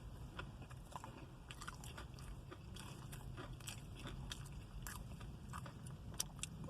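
A person chewing food close to the microphone: faint crunching and many small mouth clicks, over a steady low rumble.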